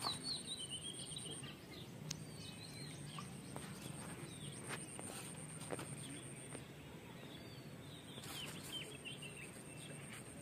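Outdoor ambience: small birds chirping now and then over a low steady hum, with a thin, steady high-pitched whine that cuts out and comes back a few times.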